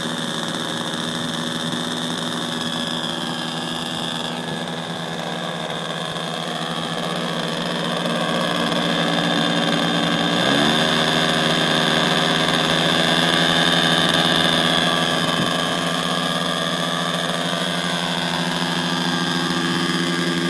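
Engines of a large radio-controlled Canadair water-bomber model running on the ground during an engine test, a steady drone whose pitch steps up about halfway through as the throttle is opened.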